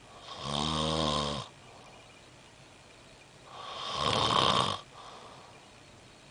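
A sleeping person snoring: two snoring breaths about three seconds apart. The first is a low buzzing snore lasting about a second. The second is breathier, swells in loudness and stops abruptly.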